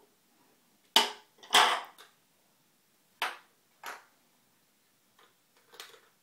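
Handling noise: a handful of separate clacks and clatters of hard objects being picked up and set down, the two loudest about a second and a second and a half in, with quiet between them.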